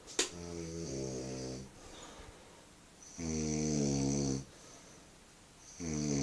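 A sleeping man snoring heavily, three loud, pitched, drawn-out snores about three seconds apart, the snoring his friend puts down to a night on the ale. A single sharp click comes right at the start.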